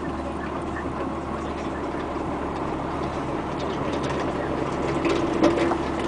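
Komatsu PC200 excavator heard from inside its cab, its diesel engine running steadily as the upper structure swings. A few short clicks or knocks come near the end, the loudest about five and a half seconds in.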